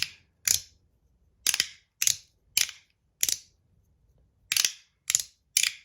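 Handheld fidget toy clicking sharply as its pieces snap into place over plastic detent balls, about eight snaps at uneven intervals of around half a second.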